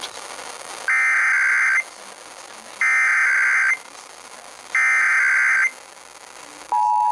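Emergency Alert System SAME header: three identical bursts of digital data tones, each about a second long with about a second between them, carrying the coded Required Monthly Test message for Ohio. Near the end the steady two-tone EAS attention signal starts.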